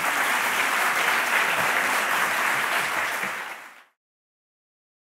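Audience applauding steadily, cut off abruptly about four seconds in.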